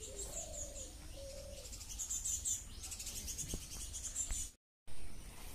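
Birds chirping, with a low cooing call in the first second or so, over a faint steady background hum.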